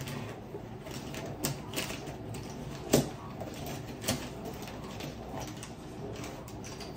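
Light clicks and knocks of pens and pencils being handled while art supplies are rummaged through, with the sharpest knock about three seconds in.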